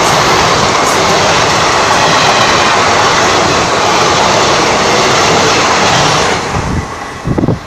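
Two Indian Railways passenger trains passing close to each other, heard from an open coach door: a loud, steady rush of wheels and air. It falls away about six seconds in as the last coach clears.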